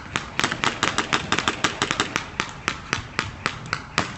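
Airsoft gunfire: many sharp cracks and clicks, several a second in no steady rhythm, from more than one gun.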